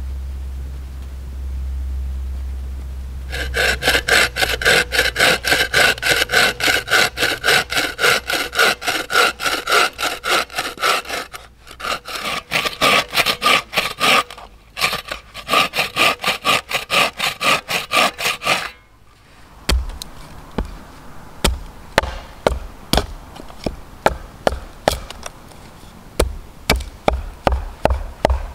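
After a low rumble in the first few seconds, a wooden-framed bow saw cuts a wooden spoon blank in quick, even strokes, with two short pauses. It stops about two-thirds of the way through, and a hatchet chops at the blank on a stump in sharp knocks that quicken into a steady run near the end.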